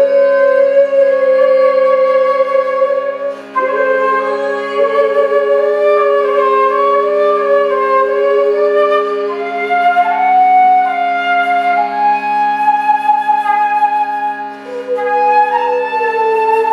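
Transverse flute playing a slow, wavering melody over a steady low drone, with two short breaks between phrases.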